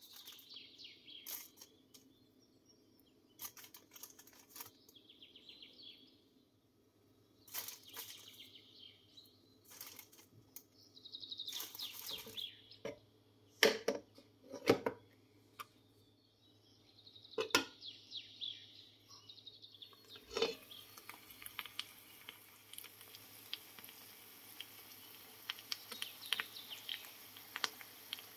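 Potato slices going into hot oil in a nonstick frying pan: short bursts of sizzling and sharp clicks, irregular, a few of them louder around the middle. About twenty seconds in, a steady frying sizzle with small crackles takes over.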